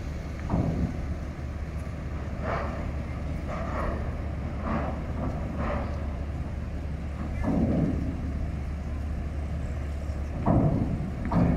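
Cars driving off a ferry's stern ramp onto the quay, over a steady low hum from the ship. Dull thumps come now and then, the loudest two near the end.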